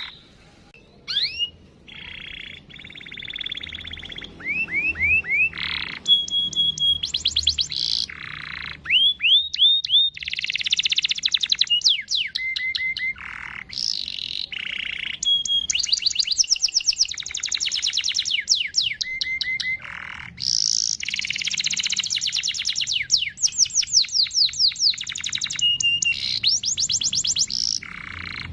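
Male domestic canary singing a long rolling song: phrase after phrase of fast trills and quick repeated chirps, broken by short held whistled notes. The song is thinner for the first second or two, then runs on almost without a break.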